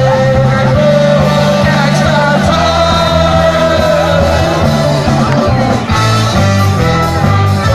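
Live band playing a rock number, with a singer, guitars and a horn section of saxophone and trumpet.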